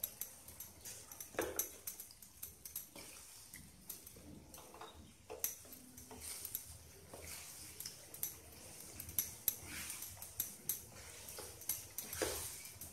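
Wooden spatula stirring chunks of mutton in thick masala in a nonstick kadai, with soft irregular scrapes and knocks against the pan.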